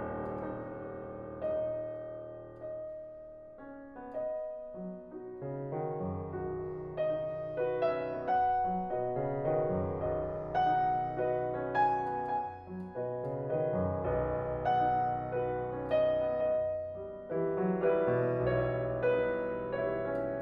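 Solo Fazioli grand piano playing slow classical music: a chord dies away softly at first, then the playing grows fuller, with a sustained low line under chords.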